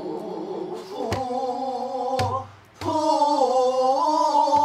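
Pansori singing by a woman who accompanies herself on a buk barrel drum: the voice slides and wavers, breaks off briefly about two and a half seconds in, then comes back on a long held note. Two drum strokes fall about one and two seconds in.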